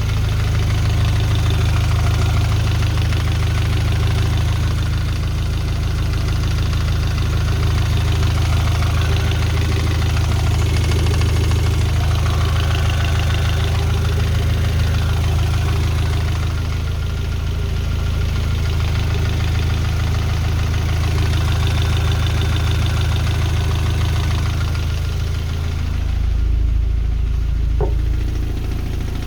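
Toyota 3S-GE twin-cam inline-four, the distributor-ignition version, running steadily with a knock from the engine.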